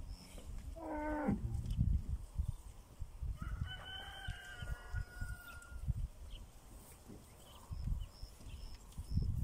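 Cattle hooves thudding unevenly through soft mud as a herd walks past. A brief animal call falls in pitch about a second in, and a rooster crows for about two seconds starting about three and a half seconds in.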